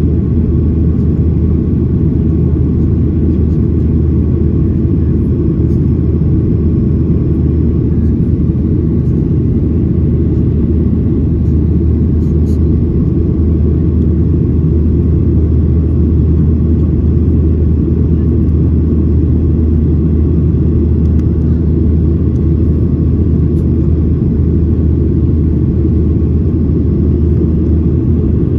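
Steady low rumble inside the cabin of a Boeing 737-800 in flight: engine and airflow noise.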